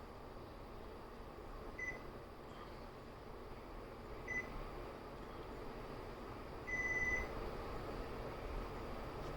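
Panasonic ceiling fan's receiver beeping in answer to the remote: two short beeps about two and a half seconds apart, then a longer beep about seven seconds in, over a steady hiss.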